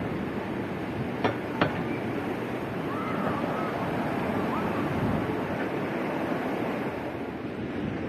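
Ocean surf washing against the shore in a steady rush, with two sharp knocks about a second in.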